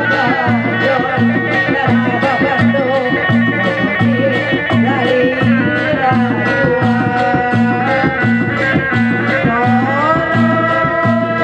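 Loud Sundanese bangreng music from a live ensemble: a steady drum beat of about two strokes a second under a wavering melody line that slides up in pitch near the end.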